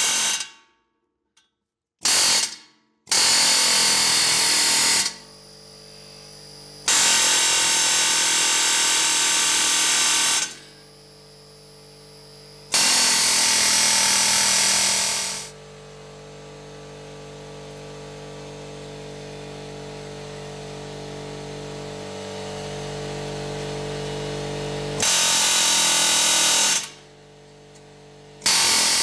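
Pneumatic air hammer with a pointed chisel bit hammering on a steel steering knuckle around the hub bearing, driving the bearing loose. It runs in bursts of two to four seconds, with a short burst first. Between the bursts a quieter steady hum slowly grows louder.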